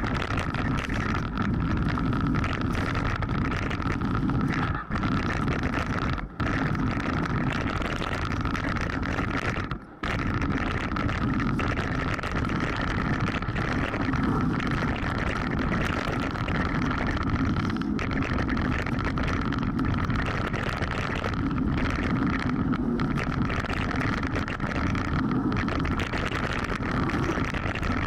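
Mountain bike riding fast down a rocky forest trail: a constant rumble and rattle of tyres and frame over stones and roots, with a steady high hum over it and wind on the microphone. The sound dips briefly a few times, most clearly about ten seconds in.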